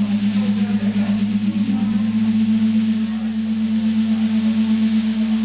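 Electric bass holding one low note through its amplifier, a steady drone at a single pitch that wavers with a fast pulse.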